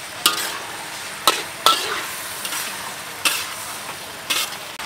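A long metal ladle stirring chicken and sliced onions in a sizzling wok, with the ladle knocking against the wok about five times.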